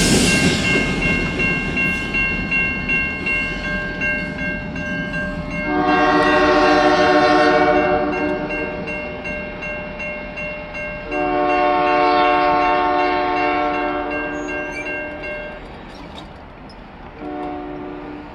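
Diesel locomotive air horn sounding several notes at once. It gives a long blast about six seconds in, a longer one from about eleven seconds, then a short one near the end: the pattern of a grade-crossing warning. At the start, the rumble of a passing locomotive fades away.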